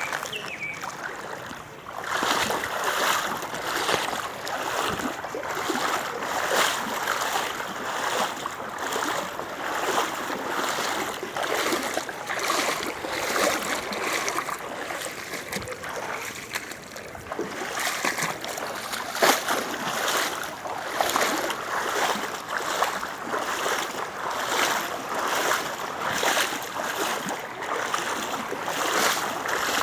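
Steady rush of rain and splashing water, with an uneven, surging hiss that gets louder about two seconds in.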